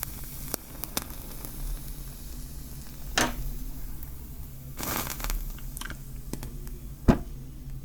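Wooden matches and a matchbox handled close to the microphone: scattered light clicks and taps, short scratchy rasps about three and five seconds in, and one sharp click near the end.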